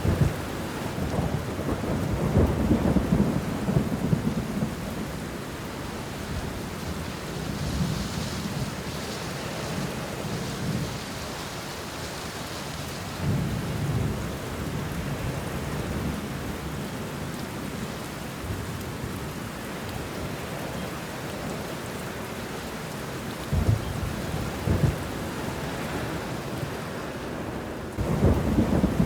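Steady rain falling on banana leaves and bushes, with thunder rumbling several times: a long roll in the first few seconds, shorter ones around the middle and later on, and another starting near the end.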